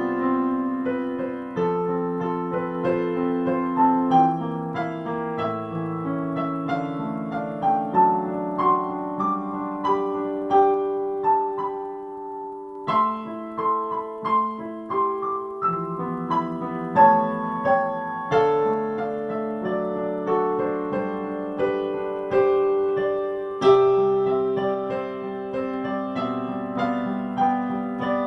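Solo piano music played on a digital keyboard's piano voice: a melody over held chords, with a brief break about halfway before the playing picks up again.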